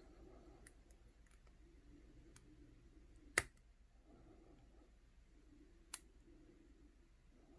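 Faint metallic clicking of a lock pick and tension wrench working the pins of a Master Lock No. 160 brass padlock. There are two sharper clicks, the louder one about three seconds in and another near six seconds.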